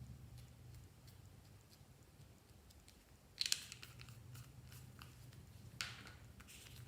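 Glossy slime being worked by hand, giving soft sticky clicks and crackles, with two louder bursts of crackling about three and a half seconds in and near six seconds, over a low steady hum.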